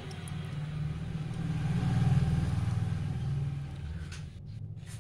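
A motor vehicle passing by, its low engine rumble swelling to a peak about two seconds in and then fading away.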